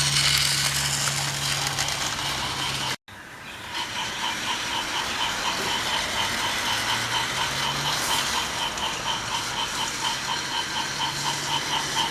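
Trackmaster remote-control Thomas toy locomotive running on its track: its small electric motor and gears make a steady running sound with a fast, even ticking. The sound cuts out briefly about three seconds in, then the running and ticking resume.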